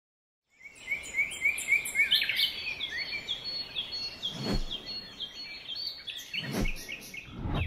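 Birds chirping in quick, repeated short calls over a steady background hiss, starting about half a second in, with two brief low thumps partway through.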